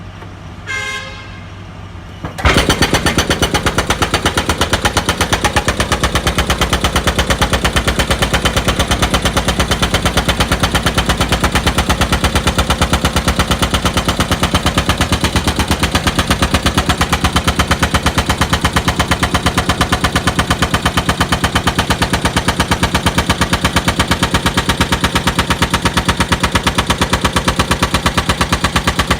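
Daewoo 200 excavator working: a loud, rapid, even pounding of many strokes a second that starts suddenly about two seconds in and goes on unchanged. Before it, a short pitched tone sounds.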